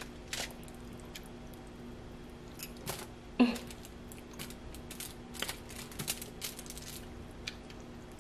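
Quiet eating sounds: scattered soft clicks and taps of a metal fork against a foil food tray, most of them between five and seven seconds in. A brief falling vocal sound comes about three and a half seconds in.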